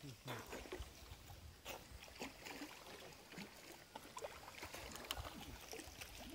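Faint lapping and small splashes of lake water around people swimming.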